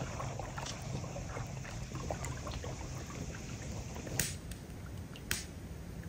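Small waves lapping and trickling against a rocky lakeshore, over a low steady drone. Sharp clicks come about four and five seconds in.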